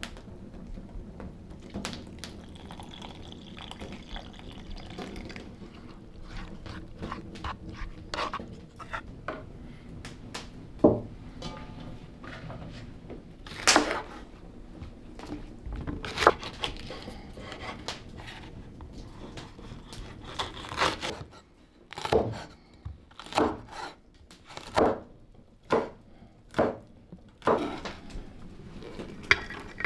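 Kitchen food-preparation sounds: scattered knocks and clicks on wood with some liquid dripping and pouring, then a run of stronger knocks a little under a second apart in the last third.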